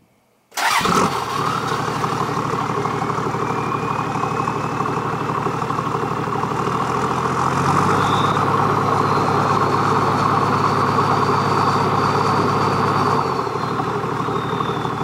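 Toyota HDJ81 Land Cruiser's 1HD-T straight-six turbo diesel starting up about half a second in and then running through a 2.5-inch straight-pipe exhaust, heard at the tailpipe. About 8 seconds in the engine speed steps up slightly, near 1000 rpm, and falls back to idle about 13 seconds in, with a faint high turbo whine rising and falling with it.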